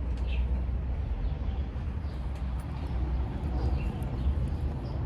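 Steady low outdoor rumble, with a few faint, short high chirps about half a second and nearly four seconds in.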